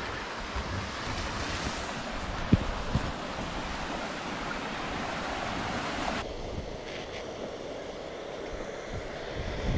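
Steady rushing noise of wind buffeting the microphone, with one sharp knock about two and a half seconds in. The upper hiss thins out abruptly about six seconds in.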